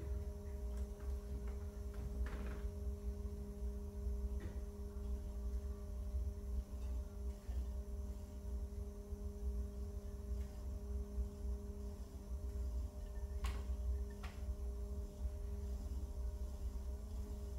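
Electric pottery wheel running with a steady motor hum while a leather-hard pot is trimmed on it, with a few faint clicks.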